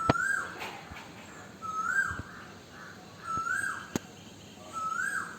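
A bird giving the same short call over and over, four times, each rising and then dropping back, about every one and a half to two seconds. There is a sharp click about four seconds in.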